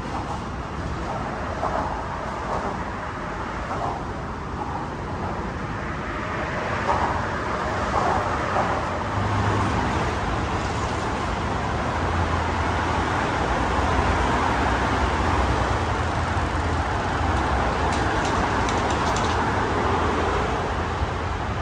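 Steady road traffic on the bridge's roadway, a continuous drone of passing cars. It grows louder about seven to nine seconds in, with a low hum added from then on.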